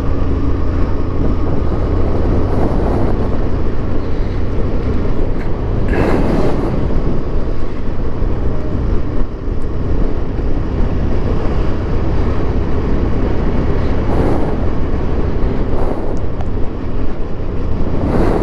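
Motorcycle on the move: steady engine and wind rumble on the rider's camera microphone, with a few short louder rushes of noise, about six seconds in, around fourteen seconds and near the end.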